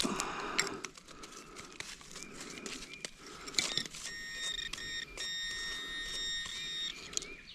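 Scraping and rustling of digging, then from about four seconds in a metal-detecting pinpointer gives a steady, high electronic tone for about three seconds, signalling that it is on a metal target.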